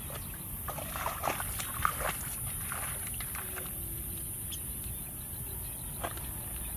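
Footsteps squelching and splashing through wet paddy-field mud and shallow water: a run of short wet slaps in the first few seconds, the loudest about two seconds in, and one more near the end.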